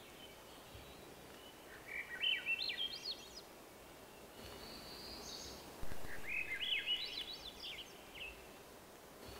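Swainson's thrush singing: two phrases of whistled notes that spiral upward in pitch, one about two seconds in and one about six seconds in.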